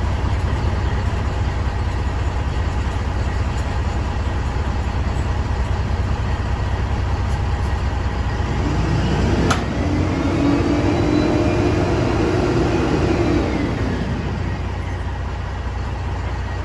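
Heavy truck's engine idling steadily. About nine seconds in, a second engine tone rises, holds for several seconds and falls away, and there is a sharp click near its start.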